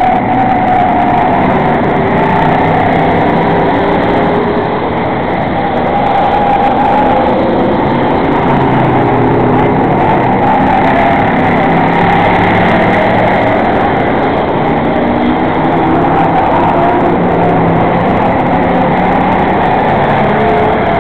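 A field of enduro stock cars racing around an asphalt oval: many engines running hard together, loud and steady, their notes overlapping and shifting in pitch as the cars go by.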